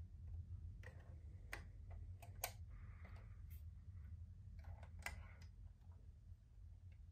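Light handling noise: a handful of faint, scattered clicks, the sharpest about two and a half seconds in, and brief soft rustles over a low steady hum.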